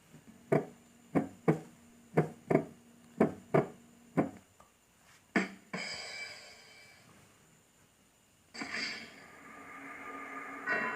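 Sound effects with a musical sound: about ten sharp hits, mostly in quick pairs, over a low steady tone, then two bursts of ringing, chime-like tones that fade away.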